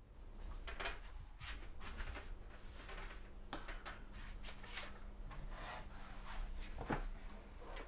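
Quiet eating sounds: irregular light clicks and scrapes of a spoon in a bowl, with soft rustling of movement and a faint steady hum underneath.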